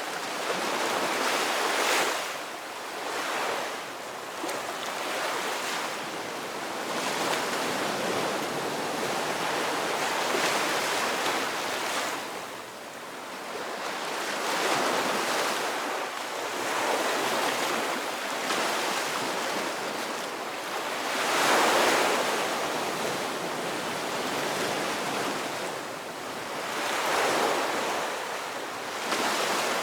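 Ocean surf: waves breaking and washing in continuously, swelling and ebbing every few seconds, with the biggest surge a little past two-thirds of the way through.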